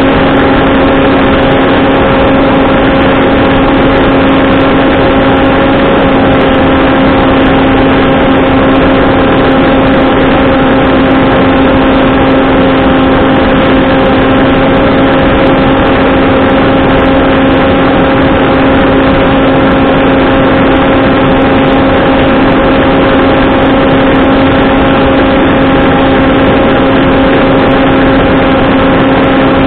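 Electric motor and propeller of a Skywalker Falcon FPV flying wing running at a steady throttle in flight. It gives a loud, constant buzz that holds one pitch, over a rush of wind noise on the onboard camera's microphone.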